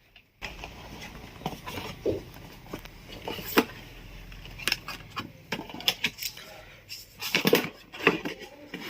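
Laptop box and packaging being handled during unboxing: scattered taps and knocks, then a busier stretch of knocking and rustling near the end.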